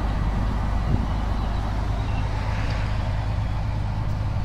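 Heavy truck's diesel engine running steadily under way, with road noise, heard from inside the cab: a low, even drone.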